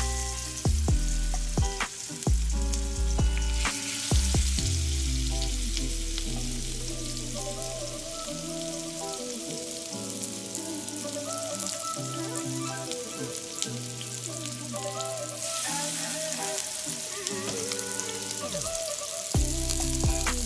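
Chicken drumsticks frying in hot oil in a cast-iron skillet, a steady sizzle that grows louder about four seconds in and again for the last few seconds as more pieces go into the pan.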